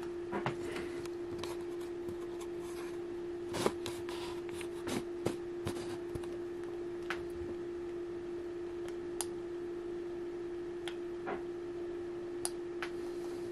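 A steady low electrical hum on one pitch from the radio test bench, with scattered light clicks and taps from handling the equipment.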